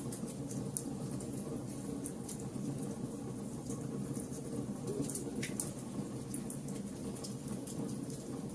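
Wood fire crackling, with scattered sharp pops over a steady low rumble of flames; one louder pop comes about five and a half seconds in.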